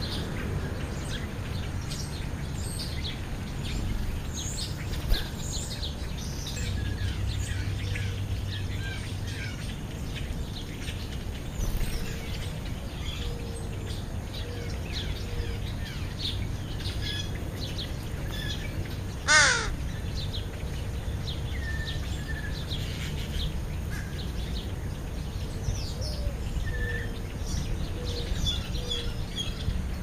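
A crow gives a single loud caw about two-thirds of the way through, over scattered faint chirps of small birds and a steady low background rumble.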